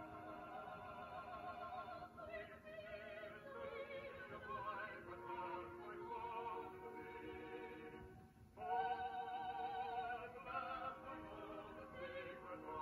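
Operatic music: a singing voice holds long notes with heavy vibrato. It breaks off briefly about eight seconds in and comes back louder.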